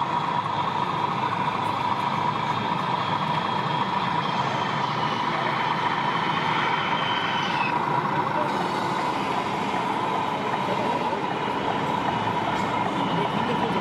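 Steady mechanical drone of 1:14 scale radio-controlled model trucks driving, over the busy din of a crowded exhibition hall; a higher whine falls away about seven and a half seconds in.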